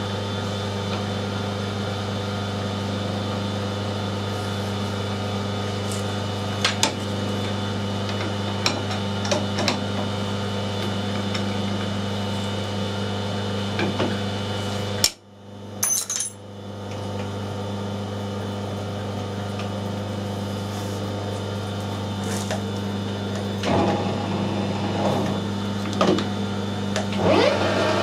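Steady hum of a metal lathe in the shop, with sharp metal-on-metal clinks of a spanner and tooling as a taper mandrel is set up between centres. The hum cuts out suddenly about halfway for a second or two, then returns. Near the end the lathe spins the mandrel and the clinking grows busier.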